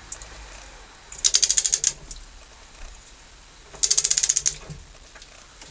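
Ratchet wrench clicking in two quick bursts about two and a half seconds apart, as the handle is swung back between strokes while tightening the bolt of a harmonic steering wheel puller.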